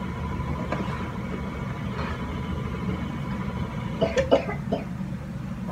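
Stand mixer motor running with a steady hum. A short cough comes about four seconds in.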